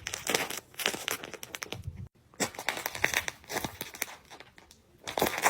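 Foam-filled plastic candy wrapper crinkling as it is squeezed and handled, in a series of irregular crackly bursts with a brief break about two seconds in.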